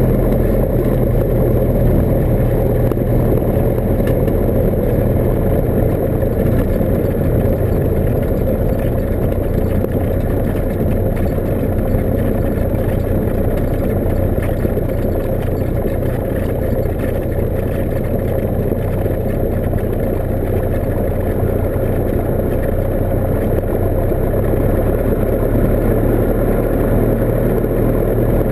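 Cessna 172's piston engine and propeller running steadily at low taxi power, heard from inside the cockpit.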